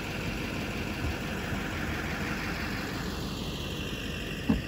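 A pickup truck's engine running steadily, a low rumble with hiss over it. A short thump comes near the end.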